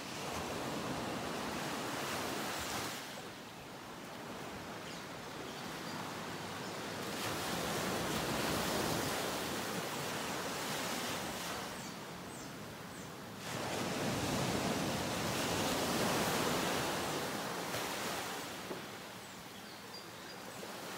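Ocean surf: a steady wash of waves that swells and fades every few seconds.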